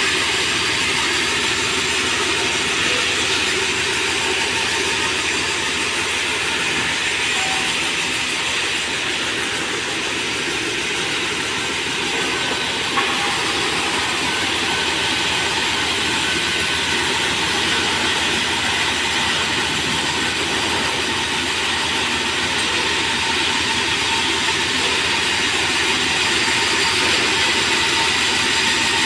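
Sawmill band-saw headrig running steadily, its blade cutting merbau hardwood into slabs, with an even, unbroken machine noise. One short knock about 13 seconds in.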